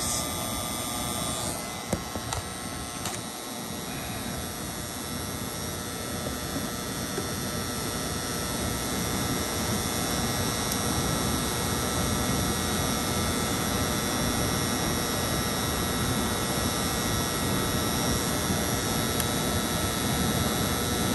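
Energized contactor for the electric heat strips in a Goodman air handler buzzing with a steady mains hum, over a steady rushing noise. The loud buzz comes from the top contactor, which is to be replaced.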